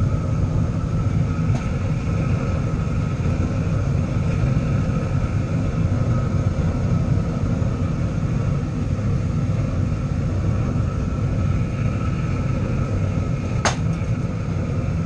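Small metal-melting furnace running with a steady low roar and a faint steady whine above it; a single sharp click near the end.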